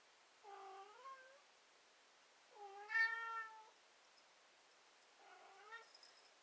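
Domestic cat whining: three drawn-out meows, the middle one, about three seconds in, the loudest and longest.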